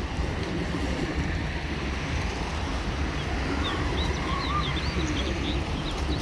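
Pigeons cooing at a feeding spot, with a cluster of short high bird chirps about three to five seconds in, over a steady low rumble.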